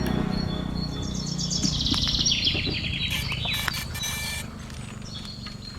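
A bird call: a fast run of high chirps sliding down in pitch, lasting about three seconds, over a steady low rumble.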